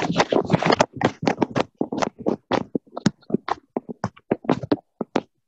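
Rapid irregular tapping and knocking, about four or five sharp strikes a second, crowded together in the first second and then spacing out.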